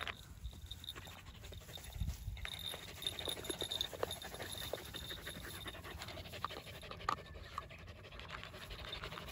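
Dogs panting as they move about in grass, with light rustling and small scattered clicks.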